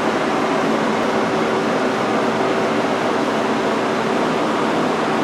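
Steady mechanical hum with a rushing, fan-like noise and one constant low tone, unbroken throughout.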